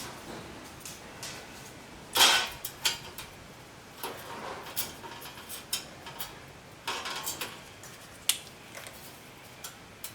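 Metal tools and pieces clattering and clinking as they are handled, with irregular sharp knocks, the loudest about two seconds in and a cluster around seven to eight seconds.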